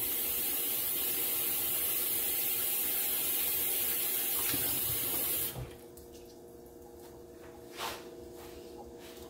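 Kitchen faucet running over hands into a stainless steel sink, a steady rush of water that is shut off suddenly about five and a half seconds in. A faint steady hum follows, with one short knock near the end.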